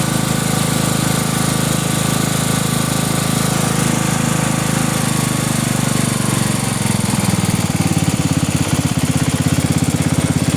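Riding lawn mower engine running steadily while driving, then slowing about two thirds of the way through, its note dropping into a slower, choppier beat.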